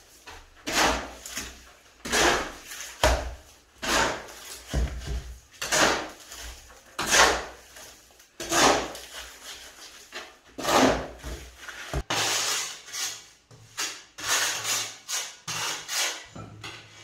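A shovel scraping and turning wet sand-and-cement mortar on a concrete floor, one stroke every second or so. About twelve seconds in it changes to quicker, shorter scrapes of a trowel spreading mortar onto the back of a floor tile.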